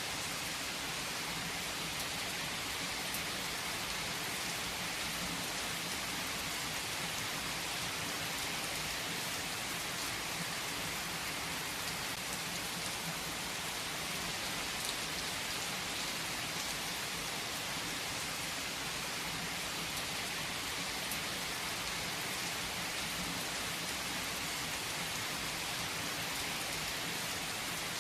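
Steady rain falling: an even, unbroken hiss of rainfall with faint scattered drop ticks.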